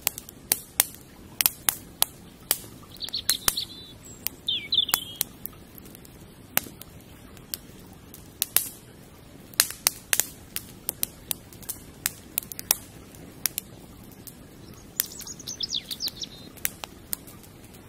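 Campfire crackling, with irregular sharp pops throughout. A songbird chirps in short warbling phrases, twice a few seconds in and once more near the end.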